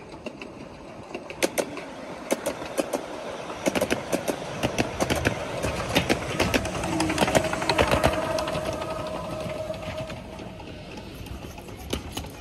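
Miniature ridable railway train rolling past close by, its wheels clicking and clattering over the rail joints. The clatter grows louder and denser toward a peak about eight seconds in, with a steady tone under it for a few seconds, then eases off.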